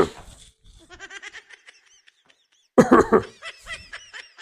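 A person's non-speech vocal sounds: faint rapid pulsing bursts, then one loud short burst about three seconds in.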